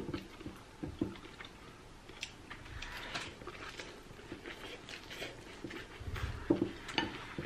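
Two people eating noodle soup: chopsticks and spoons clicking against ceramic bowls, a slurp of rice vermicelli about three seconds in, and chewing.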